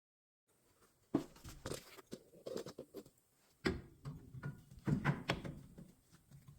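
Irregular knocks, clicks and rattles of metal tools and parts being handled, with several sharper knocks, the loudest about a second in and again near the middle. The sound starts abruptly after silence.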